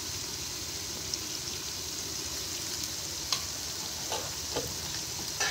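Onion-tomato masala sizzling steadily as it fries in an aluminium pot, with a few short knocks of the metal ladle in the second half.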